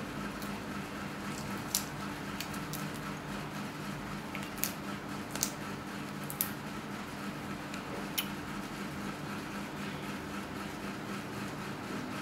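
Cooked shrimp shells being peeled by hand: a handful of short, sharp crackles scattered through, over a steady low hum.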